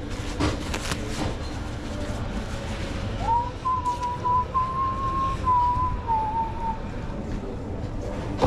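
A person whistling a few notes, beginning about three seconds in and lasting about three and a half seconds, the pitch stepping slightly up and then dropping near the end, over a steady low background rumble.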